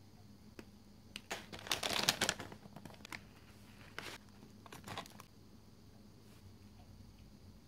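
Paper fast-food bag crinkling and rustling as hands reach in and take out an onion ring. The loudest burst comes about two seconds in, followed by a few shorter rustles.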